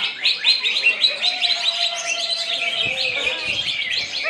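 Green leafbird (cucak hijau) singing a fast, continuous run of chirps and trills, with a steadier lower whistled note held through the middle.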